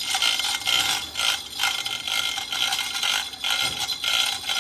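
Log debarking machine scraping bark off a log: a continuous rasping scrape that surges and dips unevenly.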